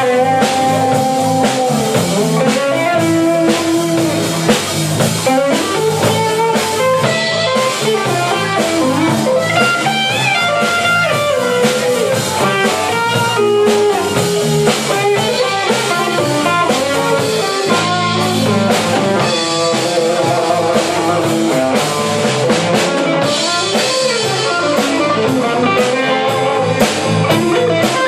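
Live blues-rock trio playing an instrumental passage: an electric guitar lead line with notes bent up and down, over bass guitar and a drum kit.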